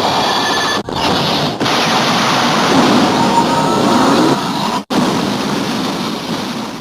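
Kamen Rider Zero-One finisher attack sound effect: a loud, dense rushing and rumbling blast with no voice, broken by abrupt cuts about a second in and again near five seconds in.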